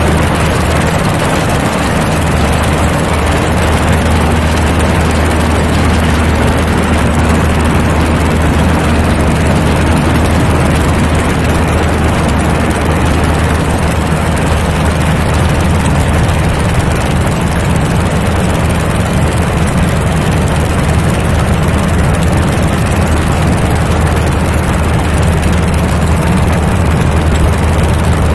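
Aeronca Champ light airplane's engine and propeller running steadily at full takeoff power through the takeoff roll, liftoff and climb, with heavy wind rush over the microphone.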